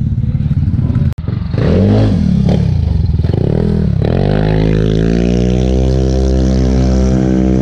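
Highly modified racing scooter engine revved in two or three quick blips that rise and fall, then held at a steady high rev.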